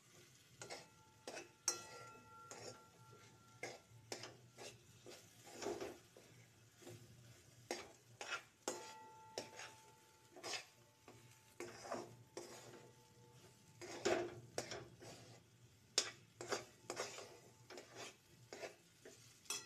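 A metal spoon scraping and clinking against a metal pan as thick, crumbly semolina is stirred on a low flame, in irregular strokes over a faint steady hum.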